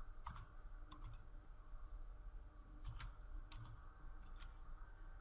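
Faint computer keyboard typing: a handful of separate keystrokes at an unhurried, uneven pace, over a steady low hum.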